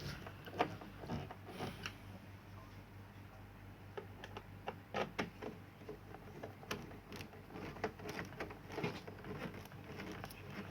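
Irregular small clicks and taps of a screwdriver driving screws back into an LCD TV's plastic back cover, over a steady low hum.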